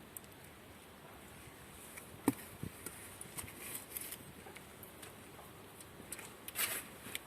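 Faint scattered clicks and rustles, with a sharper click about two seconds in and a short rustle near the end.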